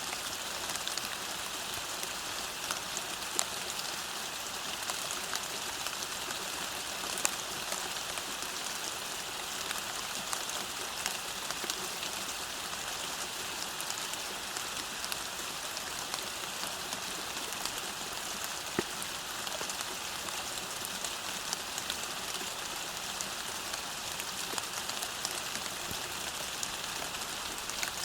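Steady rain falling on a road, a dense even patter with scattered sharper drops hitting the surface.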